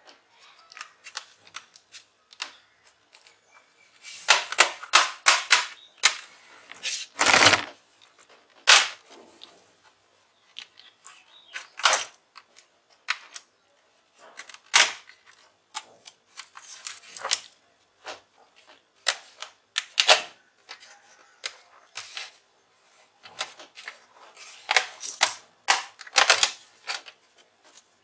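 Plastic snap-fit clips of an HP notebook's keyboard deck cracking loose one after another as it is pried off the base. The clicks and snaps come irregularly, in quick dense runs with quieter gaps between.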